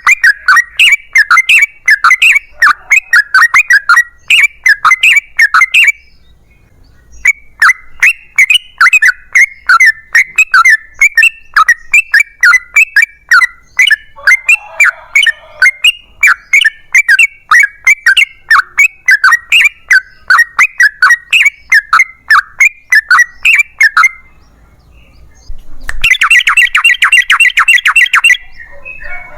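Yellow-vented bulbul (trucukan) song: a long, loud run of rapid repeated chattering notes. It breaks off briefly twice. Near the end a different dense, fast-pulsed trill comes in.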